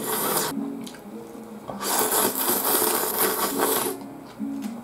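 A person slurping thin ramen noodles: a short slurp right at the start, then a longer one of about two seconds midway. Soft background music plays underneath.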